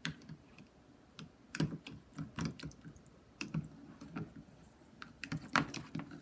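Runny slime being kneaded and squeezed by hand as activator is worked in: wet, irregular clicks and squelches.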